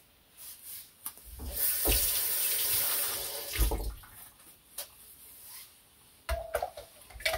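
Kitchen tap running in a steady stream for about two seconds, then shut off, with a few knocks of utensils around it.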